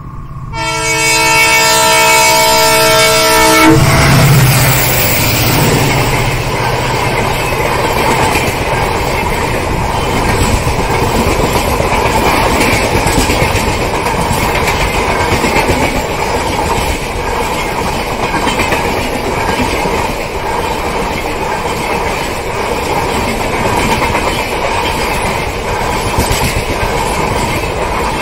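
WDP-4D diesel locomotive sounding its multi-tone horn for about three seconds as it approaches. About four seconds in, the horn stops as the locomotive passes close by, with the low rumble of its EMD two-stroke diesel engine. The LHB passenger coaches then run past at speed, a steady rolling noise of wheels on the rails.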